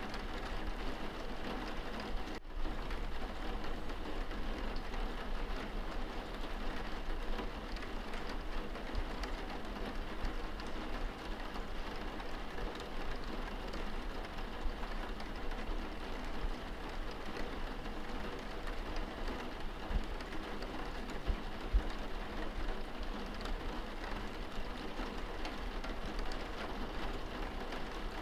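Steady patter of rain on window glass, heard from inside the room.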